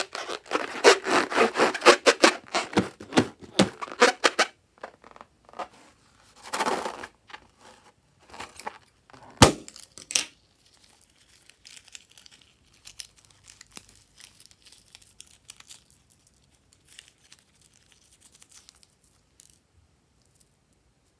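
Slime and balloon handling: rapid crinkling and crackling for the first four or so seconds, a short burst of crinkle near seven seconds, and a single sharp snap about nine and a half seconds in. After that come only faint, scattered crinkles.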